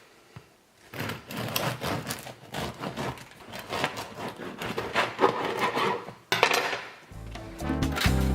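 A table knife rasping and scraping over crusty sourdough toast in quick, uneven strokes as hummus is spread on it. Jazz music with brass comes in near the end.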